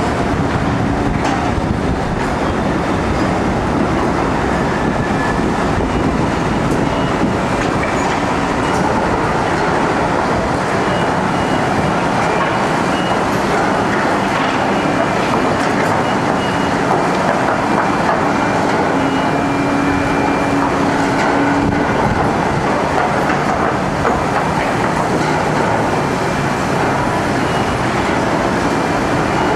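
Heavy construction machinery running with a loud, steady mechanical din and clatter, with a few faint tones coming and going over it.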